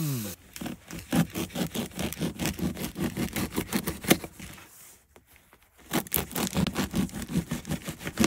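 Knife sawing through a crusty baguette in quick, even back-and-forth strokes, pausing briefly about five seconds in before the next slice.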